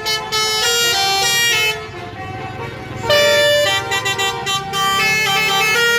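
Bus telolet air horns playing a tune, a string of long held notes that change pitch from one to the next, with a softer stretch about two seconds in.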